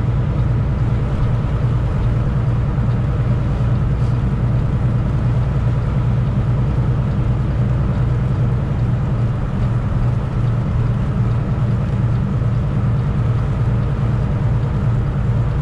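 Semi truck's diesel engine running at a steady speed, heard from inside the cab as a constant low drone mixed with road noise.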